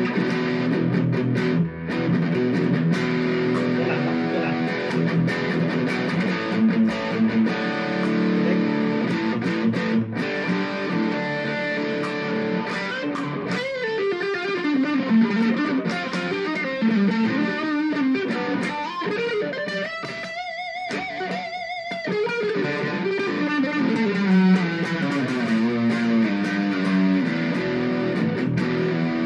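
Electric guitar, an Ibanez Gio fitted with Tokai pickups, played through its neck pickup. Chords ring out for about the first half and sound very clear, with none of the blur a neck pickup often gives. The second half turns to single-note lines with string bends and a wide vibrato on held notes.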